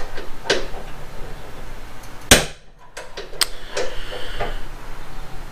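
Short knocks and taps from hands working a paper template against the underside of a car's steel trunk lid, with one much louder sharp crack a little over two seconds in.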